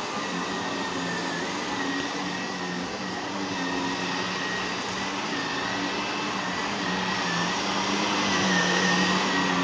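Vacuum cleaner running steadily: a rushing airflow with a motor whine that wavers slightly in pitch, growing a little louder near the end.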